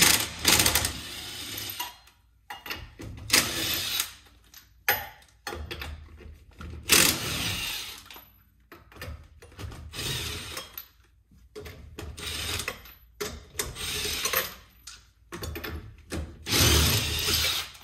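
Cordless impact wrench with a 3/4-inch socket running in repeated short bursts, spinning the lug nuts off a trailer wheel.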